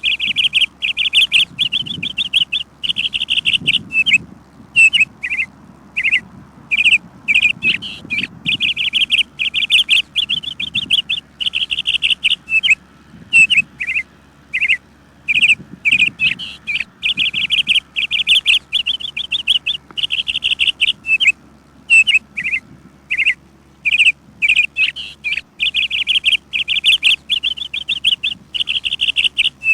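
Songbird chirping: fast trills of repeated notes lasting a second or two, broken by short single chirps.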